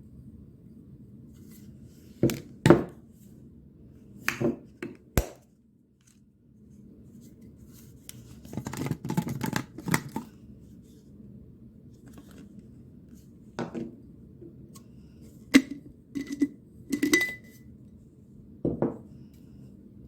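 Glass and metal kitchenware being handled: scattered knocks and clinks, with a busy stretch of rattling about halfway through. Several clinks near the end ring briefly like glass, over a steady low hum.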